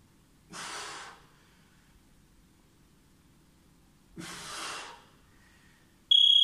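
A man breathing out hard twice, about three and a half seconds apart, under the strain of a one-arm plank with dumbbell swings. Just before the end a loud, steady, high electronic beep starts: an interval timer marking the end of a 30-second work set.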